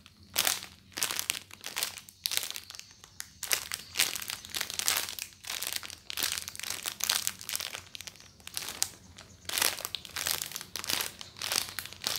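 Clear plastic bag around a squishy toy crinkling as it is handled, in quick irregular rustles with short pauses between.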